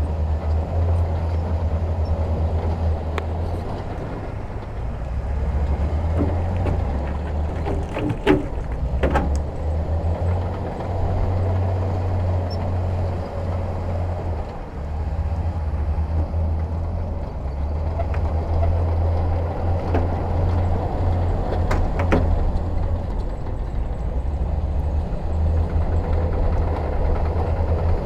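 Heavy diesel earthmoving machinery running with a steady low engine drone that rises and falls with load. A few sharp knocks or clanks are heard about a third of the way in and again later.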